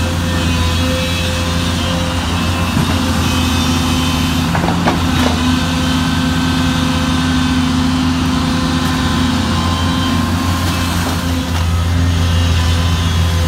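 Sunward SWE210ELR long-reach excavator's diesel engine running steadily under load as it digs mud, with a few sharp knocks near the middle.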